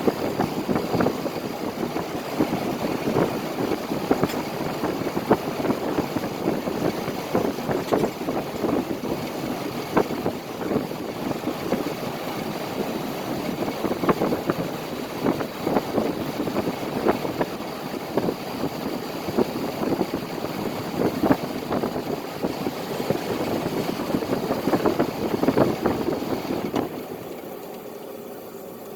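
SoleusAir ductless mini-split heat pump outdoor unit running in cool mode: its compressor and fan run steadily with an irregular rattle. Near the end the unit shuts off and the sound drops to a quieter hiss.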